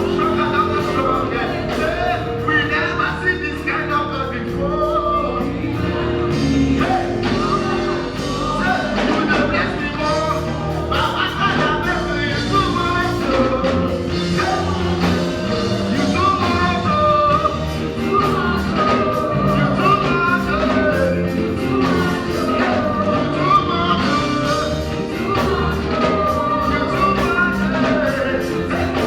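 Live gospel music: a band playing with a steady beat while voices sing the melody.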